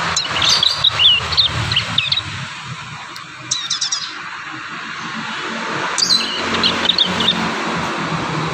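Prinias (prenjak) chirping and twittering in short bursts of quick, high, sweeping notes, three spells a few seconds apart: young birds still learning and assembling their song.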